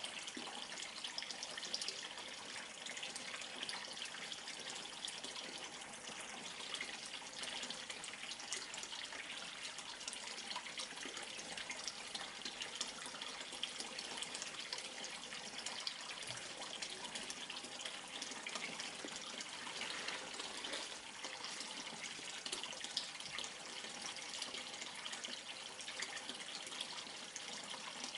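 A thin stream of water pouring into a turtle pond, splashing and bubbling steadily with fine crackling fizz.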